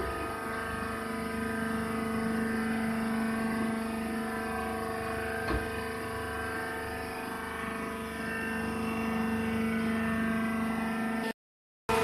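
Baling machine's motor and hydraulic pump running with a steady, multi-pitched hum, with a single short knock about halfway through. The sound cuts out for a moment near the end.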